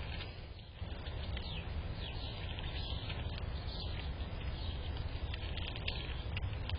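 Small birds chirping in quick, scattered short calls over a steady low rumble.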